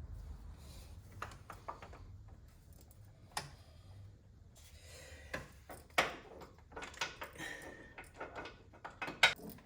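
Irregular metallic clicks and knocks of a socket wrench, extensions and socket working at a spark plug in a cramped engine bay, with one brief ringing clink partway through.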